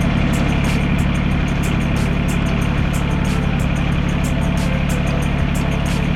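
Wood-Mizer LX150 portable bandsaw mill's engine running steadily and loudly.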